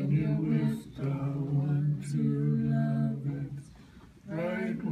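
Unaccompanied singing in a low voice: slow phrases of long held notes, with a pause of about a second shortly before the end.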